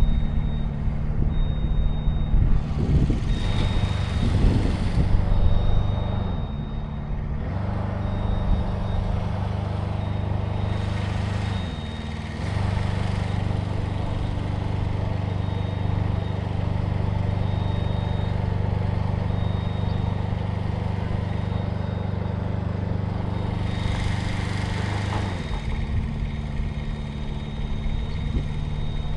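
A large engine running steadily, its pitch dipping briefly three times as if under changing load, with a faint high beep that comes and goes.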